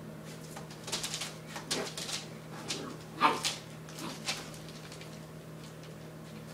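Puppy yipping and whining in a run of short, sharp calls, the loudest about three seconds in.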